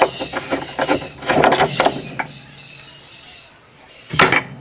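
A 10 mm wrench loosening the screws that hold a GE 10 kg washing machine's actuator: a quick run of metallic clicks and scrapes, then a single loud clatter near the end.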